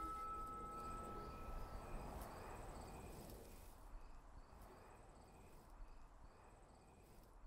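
A musical saw's last high note held and dying away within about two seconds, then faint crickets chirping about twice a second as the sound fades.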